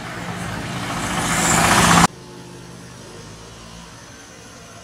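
Motor scooter engine passing close and growing steadily louder, cut off abruptly about two seconds in, followed by a quieter, steady engine hum.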